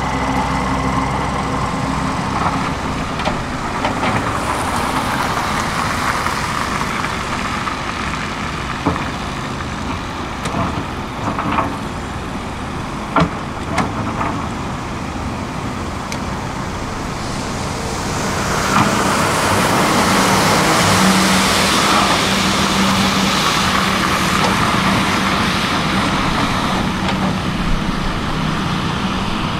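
Heavy diesel machinery running at a building site: a Hitachi 225 USR excavator and a Volvo truck at work. A few sharp knocks come between about 9 and 14 seconds in. From about 19 seconds the engine noise grows louder, with a rushing hiss and a steady low hum.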